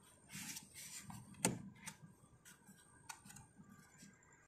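Faint handling noise on a car door and its window glass: light rubbing and a few scattered clicks, with one sharper knock about a second and a half in.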